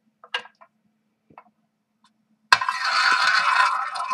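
Prize wheel being spun by hand: a few light clicks, then about two and a half seconds in, a sudden fast rattling of the wheel's clicker against its pegs as it spins.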